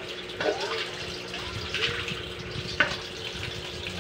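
Tap water running into a stainless steel bowl in a sink as raw squid are rinsed by hand, splashing and sloshing. A few sharp clicks or knocks cut through, about half a second in, near two seconds and near three seconds.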